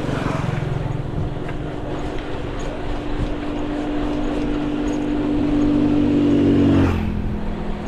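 Wind rushing over an action camera's microphone as a folding bike coasts downhill, with a steady low hum underneath that stops abruptly about seven seconds in.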